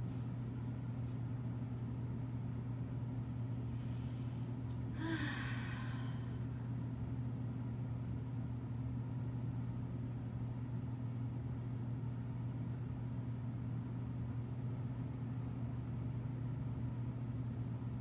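A steady low hum throughout, with one long exhale, a sigh, about four to six seconds in.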